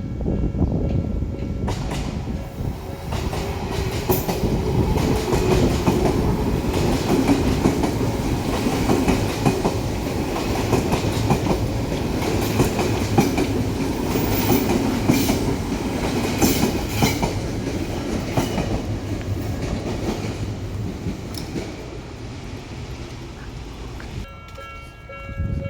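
Odakyu electric train passing slowly over a level crossing, its wheels clacking over the rail joints. The sound stops abruptly near the end, giving way to a quieter stretch with a few steady tones.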